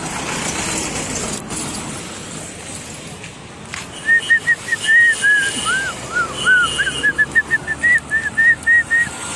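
Road and traffic noise, then, from about four seconds in, a rapid run of loud, short whistled notes, about three a second, each rising and falling in pitch in a tune-like pattern.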